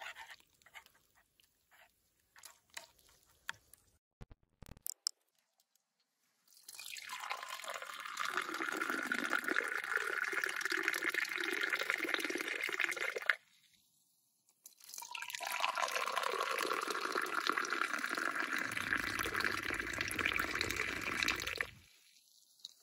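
Tea poured from above into two small glasses, one after the other. Each pour is a steady splashing stream of about seven seconds that leaves the glass foaming. Before the pours, a few faint clicks and scrapes of a metal spoon against a frying pan.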